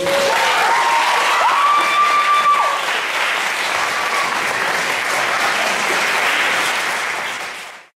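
Audience applauding and cheering, with a few drawn-out whoops in the first three seconds.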